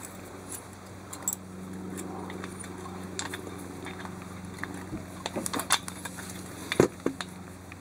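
Light metallic clicks and scrapes as the cap bolt of a new cam chain tensioner is turned by hand into a Kawasaki Z500B's cylinder. A cluster of sharper clicks comes about five to seven seconds in.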